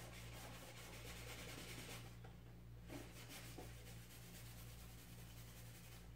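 Faint rubbing of fingers on the surface of a foam model-plane wing, trying to wipe off a stain, for about two seconds. After a short pause come a couple of light knocks as the wing is handled, over a steady low electrical hum.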